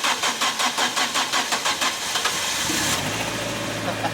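Car engine cold-started in freezing weather: the starter cranks it in a steady rhythm of about five strokes a second for nearly three seconds, then the engine catches and settles into a steady idle.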